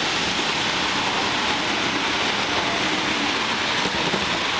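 Model trains running on a layout: a steady rushing hiss of their motors and wheels on the rails.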